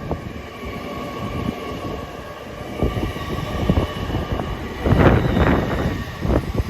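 Hitachi Class 800 Azuma train passing, with a steady whine over the rumble of its wheels. The wheels clatter more heavily from about three seconds in, loudest around five seconds in.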